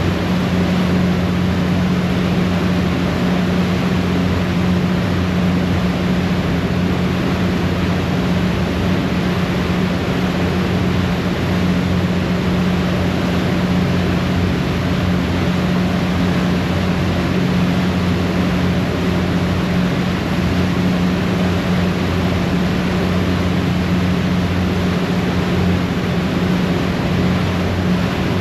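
Harbour ferry under way, heard from the stern: a steady low engine drone over the constant rush of the churning propeller wake.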